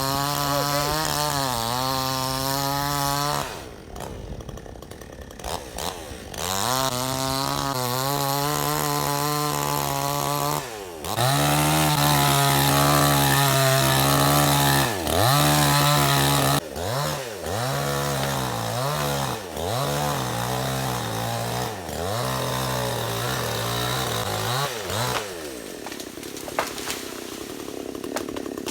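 Two-stroke chainsaw cutting into a tree at full revs. The engine drops back briefly about four seconds in, and from about seventeen seconds the revs dip and recover over and over. It stops about twenty-five seconds in.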